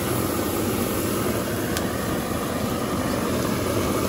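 Steady low hum of street traffic and idling engines, with no distinct events.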